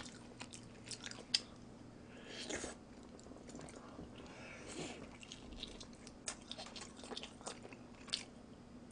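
A person chewing and biting into a bulgogi Chicago-style deep-dish pizza close to the microphone: soft, irregular mouth clicks and wet smacks with a sharper click about a second and a half in. A faint steady hum sits underneath.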